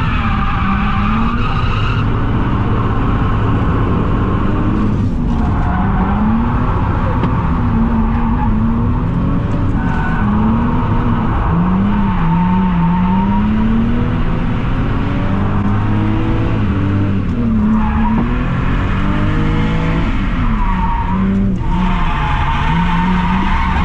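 Car engine revving up and down hard through a drift run, its pitch rising and falling again and again, over tyre noise and squeal from the sliding tyres.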